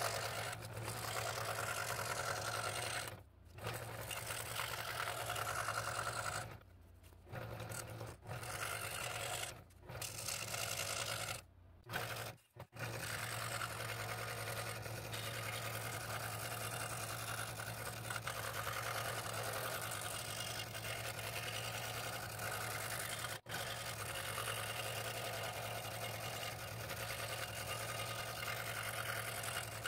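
Scroll saw running, its reciprocating blade cutting fretwork through thin, soft wood under a paper pattern, with a steady motor hum under the cutting noise. The sound cuts out briefly several times, mostly in the first half.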